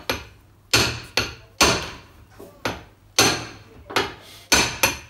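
Hammer striking a spot weld chisel, about eight sharp blows at uneven intervals, knocking the head off a plastic Phillips screw.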